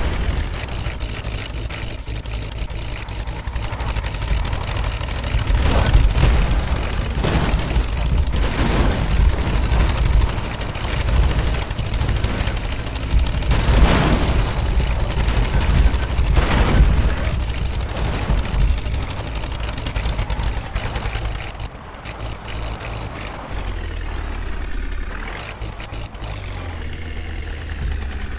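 Heavy diesel engines running, with several short, louder surges in the first two-thirds, then quieter running near the end.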